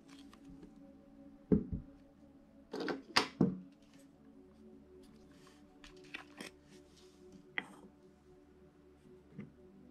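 Scattered clicks and knocks of a camera being handled, with a loud cluster about three seconds in and lighter ticks later, over quiet background music.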